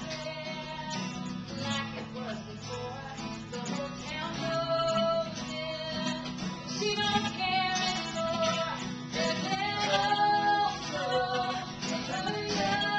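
A woman singing live, accompanied by a strummed acoustic guitar. Her held notes grow louder about a third of the way in.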